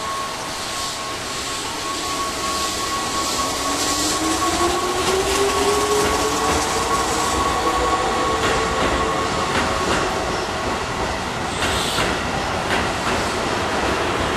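Electric train moving through a station, its motor whine rising steadily in pitch as it gathers speed. In the second half the wheels click over rail joints and points, with short bursts of wheel noise. A steady high tone runs beneath and fades out about two-thirds of the way through.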